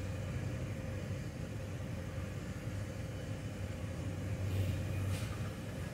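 Steady low machine hum with a faint rumble underneath, a workshop background drone.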